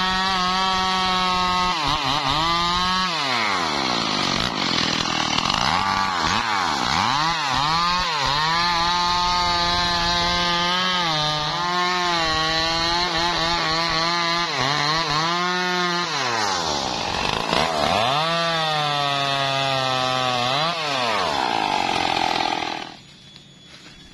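A Stihl two-stroke chainsaw cutting into a teak tree trunk, its engine note dipping and climbing back again and again. It cuts off suddenly near the end.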